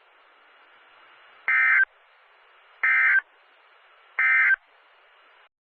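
Three short bursts of SAME digital data tones from a NOAA Weather Radio broadcast, about 1.4 s apart, over faint radio hiss. These are the end-of-message code bursts that close an emergency alert. The hiss cuts off near the end.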